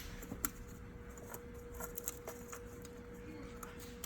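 A few light, scattered clicks and taps of hands handling wiring connectors and parts on a Dodge 3.6 V6 engine, over a steady faint hum.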